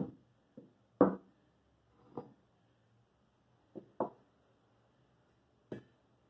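Hand tools (a hammer, a square steel tube and a small wooden-handled tool) being picked up, handled and set down on a workbench. About seven separate knocks and clacks, the loudest at the start and about a second in, and a sharper clack near the end.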